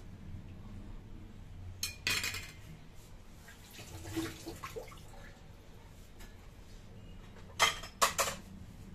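Kitchen dishes and a knife clinking and clattering as they are handled, in two short clusters: a few clinks about two seconds in and a louder run of three near the end.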